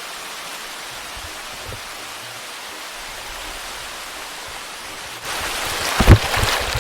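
River water running over rocks, a steady rushing hiss. About five seconds in it gets louder, and a few low thumps come near the end.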